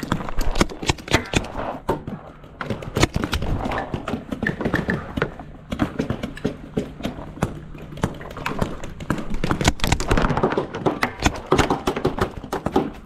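Paintball markers firing in a stream of quick, irregular sharp pops, with knocks and clatter between them.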